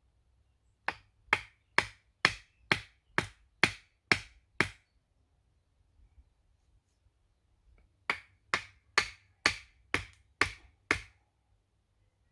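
Repeated sharp strikes, like a tool hitting wood, about two a second: nine blows, a pause of about three seconds, then seven or eight more.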